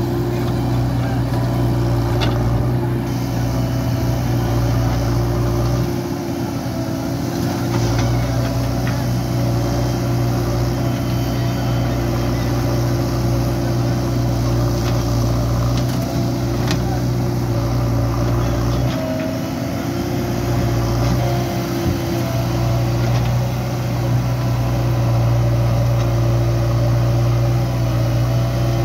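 Heavy diesel engine running steadily, its note dipping briefly twice.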